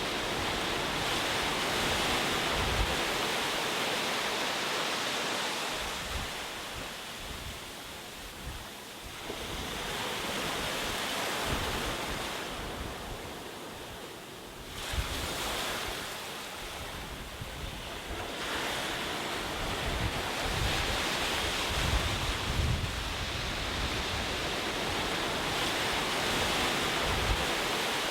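Ocean waves breaking and washing ashore, the surf swelling and easing every few seconds, with a sudden surge about halfway through.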